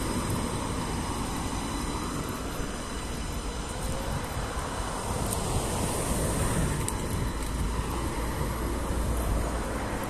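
Road traffic on a city street: cars and a van driving past, a steady rumble of engines and tyres that grows a little louder in the second half.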